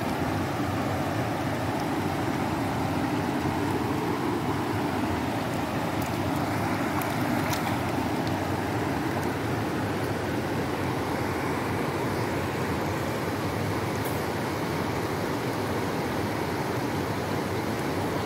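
A shallow stream running over stones, making a steady rush of flowing water.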